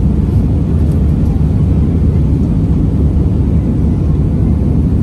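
Steady low rumble inside the passenger cabin of an Airbus A320-200 on approach: engine and airflow noise, even in level throughout.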